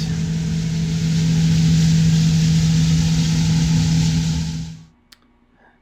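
Diesel engine of a large farm machine running steadily at constant speed, with a dense mechanical rush over it. The sound stops abruptly a second before the end.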